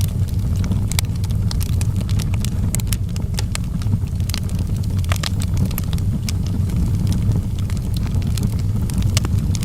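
Wood fire burning in a fireplace: a steady low rumble under frequent sharp, irregular crackles and pops from the burning logs.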